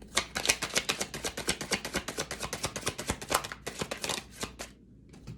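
Deck of tarot cards being shuffled by hand: a quick, even run of card slaps, several a second, that stops near the end.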